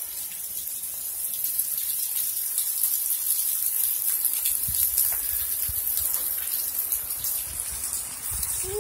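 Heavy rain pouring down, a steady hiss of water splashing on wet paving and the street.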